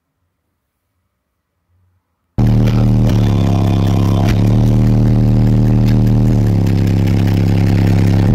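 Near silence for about two seconds, then a sudden, very loud, distorted bass from a car sound system's subwoofers, heard inside the car's cabin: a steady low drone that steps slightly in pitch a few times.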